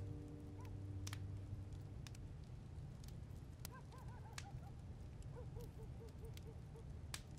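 Background music fading out, then faint night-time ambience with a bird giving short, repeated calls, including a quick run of about six just after the middle, and a few faint clicks.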